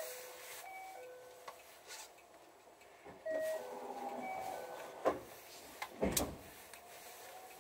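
Electronic station platform chime, a quick run of several clean tones, played twice about three seconds apart. Two knocks follow about a second apart; the second is the loudest sound.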